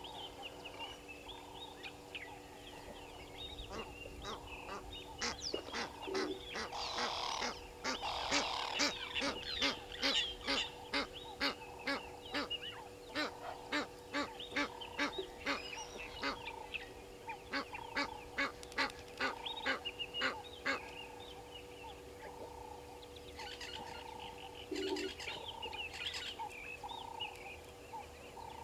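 Egyptian goose calling: a long series of harsh, evenly spaced honks, two to three a second, starting about four seconds in and lasting over a quarter of a minute, with a shorter burst near the end. Smaller birds chirp faintly behind it.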